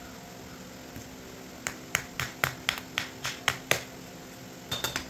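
A run of about eight sharp clicks, roughly four a second, then a quick cluster of a few more near the end, from a 1996 Yamaha 115 hp two-stroke outboard carburetor being handled and worked with a screwdriver on the bench. A steady low hum sits underneath.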